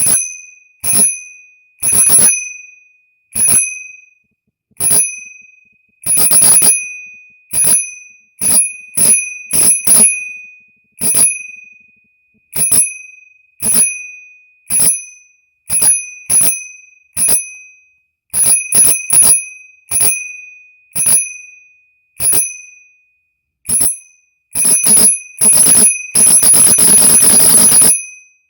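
Bicycle bell rung over and over: single dings about once a second, some in quick pairs, each ringing out and fading. Near the end it turns into a fast, continuous trill for about two seconds.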